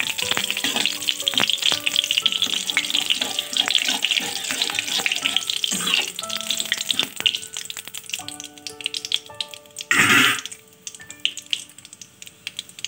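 Whole cumin seeds, a bay leaf and a dried red chilli sizzling in hot oil in a kadai while a metal spatula stirs and scrapes them: tempering the spices. The sizzle dies down after about eight seconds, and a short loud rush of noise comes about ten seconds in.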